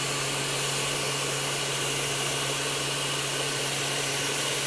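Handheld hot-air blower running steadily, a constant rush of air over a low motor hum, heating a vinyl phone skin so it shapes around the corners.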